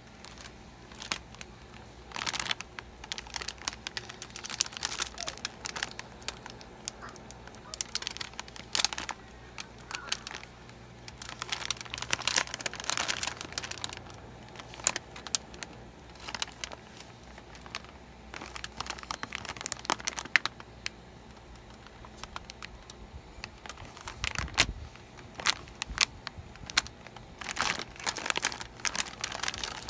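Plastic snack bag crinkling in irregular bursts as it is handled and turned over in the hand, with a dull bump about three-quarters of the way through.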